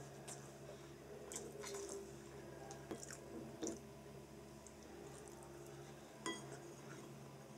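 Wooden chopsticks clicking and scraping against a ceramic bowl and saucer: a few light clicks, the sharpest about three and a half and six seconds in, with soft chewing sounds and a low steady hum underneath.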